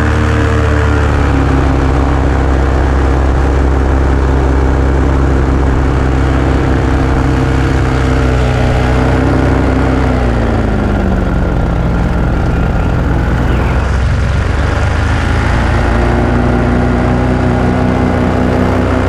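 Small propeller engine of a light aircraft in flight, with wind rushing past. Its pitch drops about ten seconds in as the throttle comes back, then rises again around sixteen seconds.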